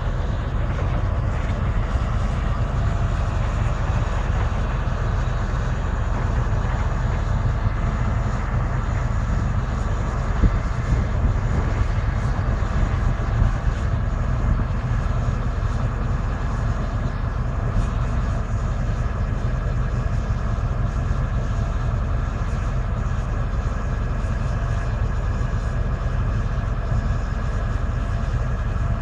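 Diesel engine of a Lonking crawler excavator running steadily at close range, a constant low drone.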